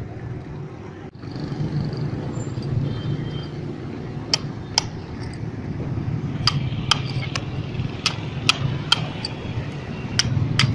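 Hammer striking a steel chisel to dig the test hole for a sand-cone density test in compacted crushed-stone base: sharp metallic clinks, singly and in pairs about half a second apart, starting about four seconds in. A steady low rumble runs underneath.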